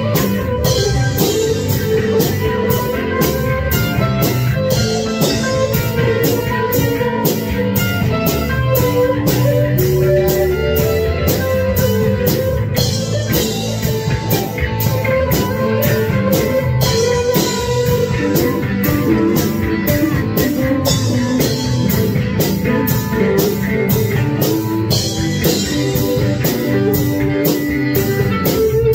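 Rock jam: a Jackson electric guitar playing over drums, with a steady cymbal beat about twice a second.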